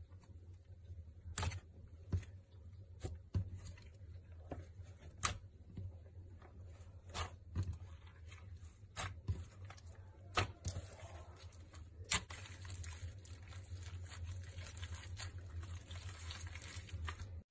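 Slime being squished and worked by hand, with irregular sharp pops and clicks from trapped air, over a steady low hum.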